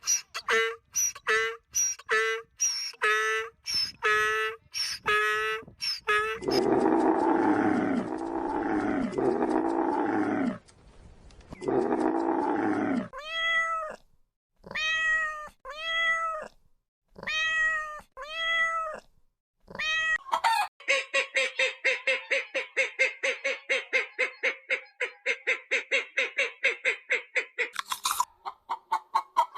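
A run of different animal calls, one recording after another. It begins with a quick series of short repeated calls, then a few long, hoarse calls. In the middle come several separate domestic cat meows, each rising and falling in pitch. From about two-thirds of the way in there is a long, fast, even pulsing sound.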